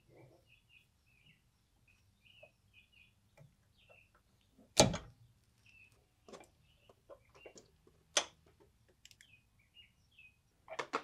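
Metal clunks and clicks as a brake caliper is fitted over the pads and disc and fastened with hand tools on a 2018 Mazda MX-5: one sharp knock about five seconds in is the loudest, another around eight seconds, and a quick cluster near the end, with faint high chirps behind.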